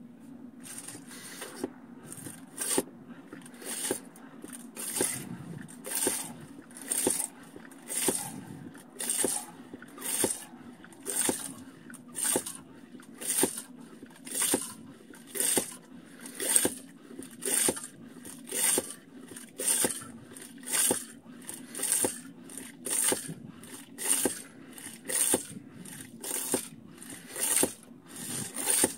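Survivor Filter Pro hand-pump water filter being pumped steadily, about one stroke a second; each stroke is a brief rush of noise as water is forced through the filter. A steady low hum runs underneath.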